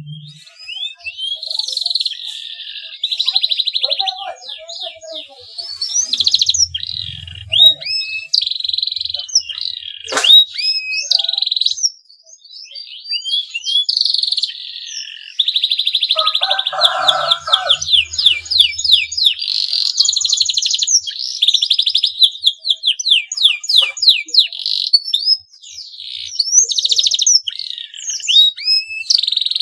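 Male domestic canary in breeding condition singing: long, fast trills and rising chirps, broken by brief pauses about twelve seconds and twenty-five seconds in.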